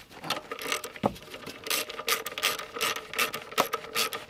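Socket ratchet clicking in quick, uneven strokes as the 10 mm nuts and bolts holding the car's kick panel and ECU are undone, with one louder knock about a second in.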